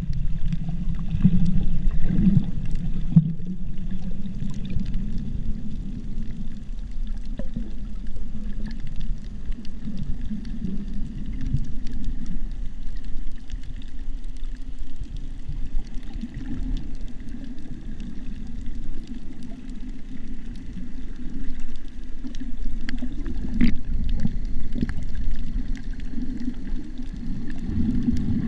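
Underwater sound picked up by a GoPro in its waterproof housing: a muffled, low rumble of moving water that surges unevenly, with scattered faint clicks.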